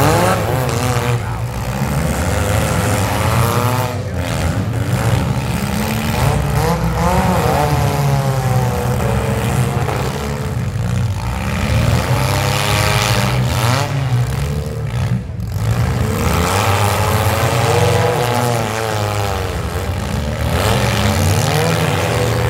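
Several demolition derby cars' engines running together, revving up and down again and again, their pitch rising and falling over a steady low engine drone.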